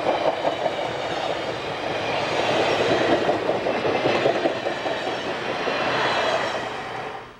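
Passenger cars of the Rio Grande Ski Train rolling past, with wheels clicking over rail joints in an irregular clickety-clack over a steady rumble. The sound cuts off suddenly near the end.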